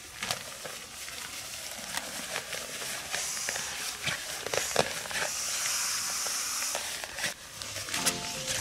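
Air hissing in two bursts through the valve of an inflatable sleeping mat, with nylon fabric rustling and crinkling as the mat and its stuff sack are handled.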